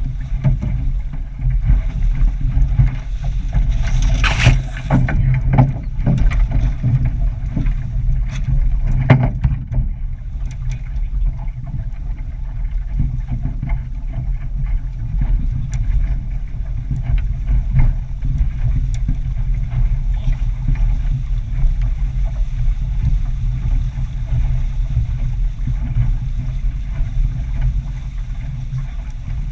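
Wind rumbling on a GoPro's microphone aboard a sailboat under way, with water rushing along the hull. A cluster of sharp hits, such as spray and waves slapping the boat, about four to ten seconds in.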